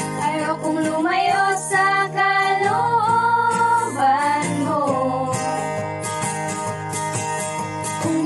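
Female voices singing a slow song together, accompanied by a strummed acoustic guitar.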